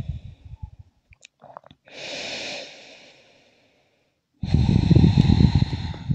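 A person's slow, deep yoga breath: a soft inhale about two seconds in, then a longer, louder exhale from about four and a half seconds in that fades toward the end.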